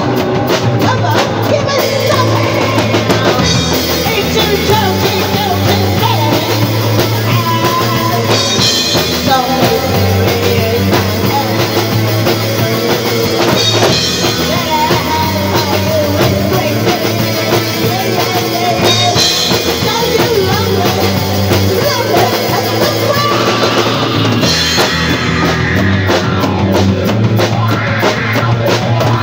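Rock band playing live: drum kit and electric bass with a woman's voice singing over them, loud and continuous.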